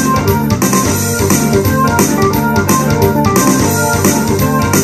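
Ensoniq SD-1 synthesizer played as a rock keyboard part: chords and melody over a moving bass line, with a steady beat running through it.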